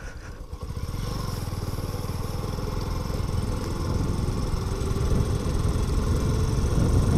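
Motorcycle engine running while riding over a dirt track, quieter for the first second and then growing steadily louder as the bike picks up speed.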